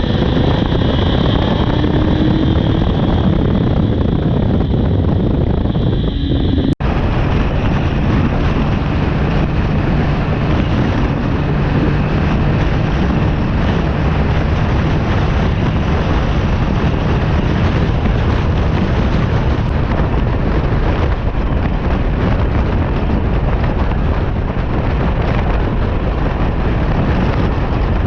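Honda CB400's inline-four engine running on a ride, with a Yoshimura slip-on exhaust, nearly buried under heavy wind noise on the microphone. A brief dropout about seven seconds in.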